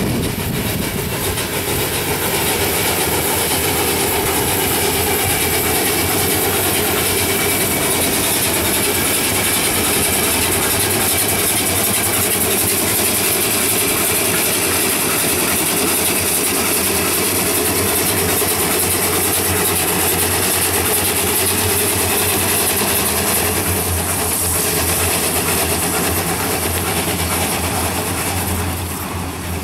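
Steam road engine working past, a loud steady running noise with a strong hiss, easing off a little near the end.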